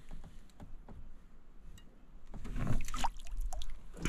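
Lake water splashing and dripping as a hooked black crappie is grabbed at the surface and lifted into the boat, with a few light knocks of handling. It is quiet at first and grows busier about halfway through.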